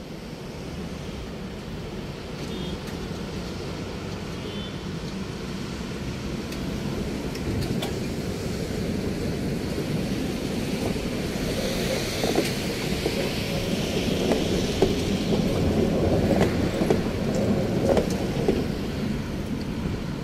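A coupled pair of high-floor trams rolling past on the track, growing steadily louder as they come close, with a rising hiss and, later, a few sharp clicks of the wheels over the rails.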